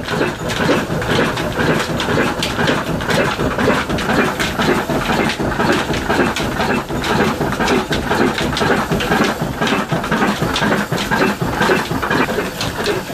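Old single-cylinder stationary diesel engine ('black engine') running steadily with a regular knocking beat, its big flywheel driving a long flat belt.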